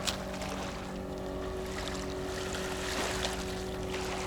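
Steady low drone of a large engine holding several even tones, over a haze of wind and waves.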